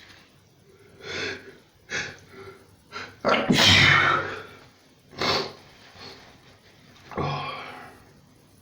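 A person in a fit of sneezing: a string of about eight sharp sneezes and breaths in quick succession, the loudest and longest about three and a half seconds in.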